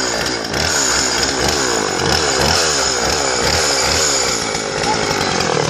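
Chainsaw engine running and revving, its pitch rising and falling over and over in a quick, even rhythm.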